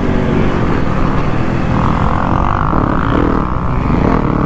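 Motocross dirt bike engine running hard, its pitch rising and falling as the throttle opens and closes while the bike is ridden around the track.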